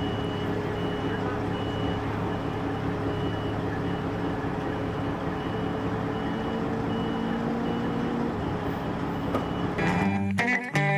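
A heavy vehicle's engine running steadily while its backup alarm beeps at a regular pace as it reverses slowly. Guitar music comes in near the end.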